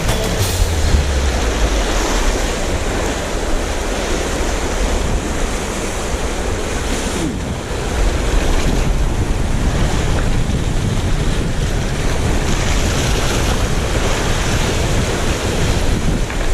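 Sea waves washing against the shore, with wind buffeting the microphone as a steady low rumble.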